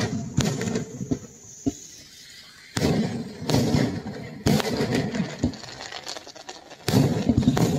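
Aerial fireworks bursting in sharp bangs with crackling clusters, a brief lull about a second in and then further flurries of bursts from about three seconds on.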